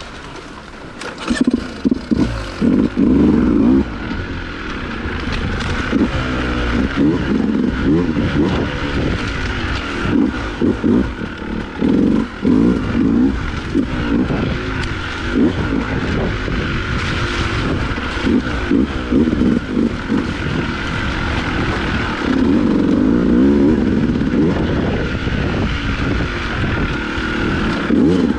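Dirt bike engine revving up and easing off again and again as it is ridden along a trail, with short knocks and clatter from the ride.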